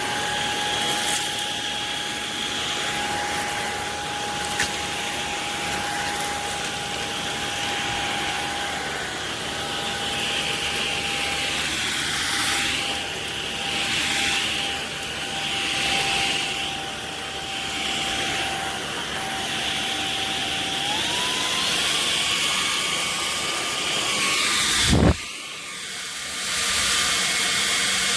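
CHEBIO V18 cordless stick vacuum running over the floor: a steady motor whine with airflow noise, swelling and fading in the middle as the head is pushed back and forth. About three-quarters of the way in the whine steps up in pitch. Near the end there is one loud low knock, and the sound drops for a moment before the vacuum carries on.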